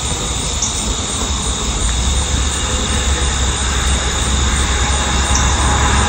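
A low, steady rumble that grows gradually louder, of the kind an aircraft passing overhead makes, with a steady high-pitched hum above it.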